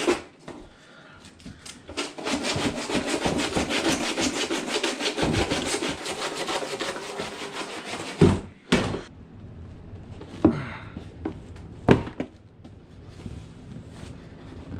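Sandpaper rubbed back and forth by hand in quick strokes against the cut edge of a plastic bumper opening, running for several seconds from about two seconds in. It then stops, leaving a few separate knocks.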